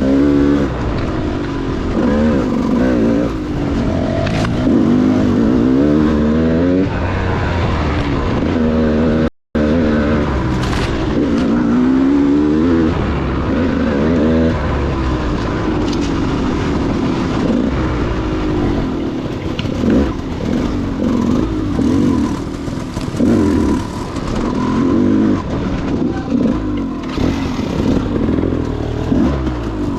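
KTM 200 XC-W two-stroke dirt bike engine being ridden on and off the throttle, its pitch rising and falling again and again every second or two. The sound cuts out completely for a moment about nine and a half seconds in.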